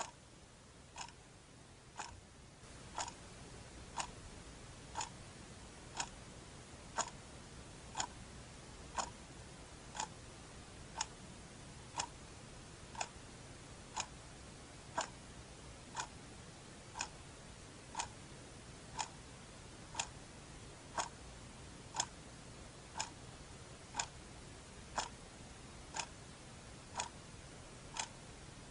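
Clock ticking steadily, one tick a second, over a faint hiss.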